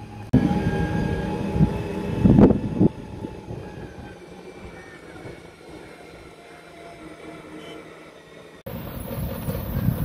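Diesel engines of heavy construction vehicles rumbling on a dirt road, loudest in the first three seconds, fainter through the middle, and changing abruptly near the end.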